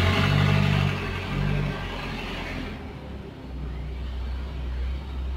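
A motor vehicle's engine rumbling, loudest for the first three seconds or so, then settling to a lower, steady hum.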